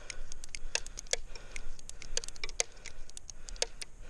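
Quick series of light metallic clicks and clinks, about twenty in four seconds, irregularly spaced, from a revolver being handled and reloaded, cartridges and cylinder clicking.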